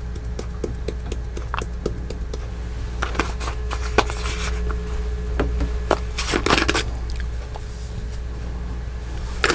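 Spice shaker jars shaken and tapped over a stainless steel mixing bowl: a run of small clicks and taps, then a couple of louder rattling shakes, over a steady low hum.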